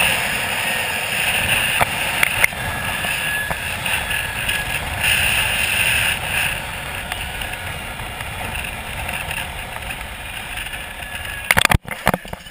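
Zip-line trolley running fast along the steel cable with wind rushing over the helmet camera, a steady whirring rush that eases as the rider slows. Near the end comes a burst of loud clacks as the trolley reaches the stop at the bottom of the line.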